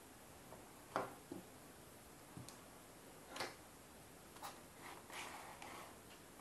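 Faint, scattered clicks and knocks of a hand handling the HDMI cable and mini-HDMI adapter at a Raspberry Pi 4 case, the sharpest about a second in, followed by a few softer taps.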